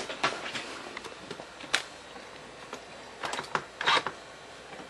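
A few scattered light clicks and knocks, the sharpest about two seconds in and a short cluster near the end, from hands handling things on a desk.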